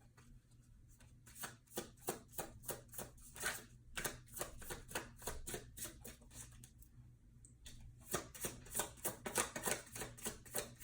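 A tarot deck being shuffled by hand: a quick run of card snaps and slaps, several a second, breaking off briefly about halfway and then starting again.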